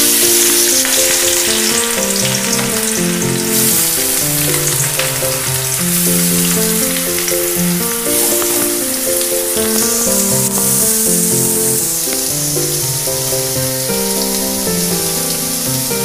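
Whole spices and chopped onion sizzling in hot oil in a steel kadai, a steady frying hiss. A melody of background music plays over it.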